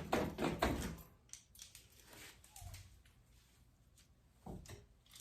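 Pickup truck door lock being worked up and down: a quick run of clicks in the first second, then a few scattered clicks and a louder knock about four and a half seconds in. The lock is stiff and sticking while it is being lubricated.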